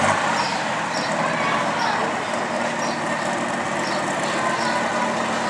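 A naturally aspirated John Deere pulling tractor's engine running hard under load as it drags a weight-transfer sled, at a steady level with no let-up.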